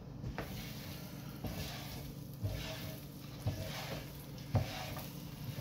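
Grease sizzling on an electric griddle while a spatula scrapes across it, knocking against the cooking surface about once a second.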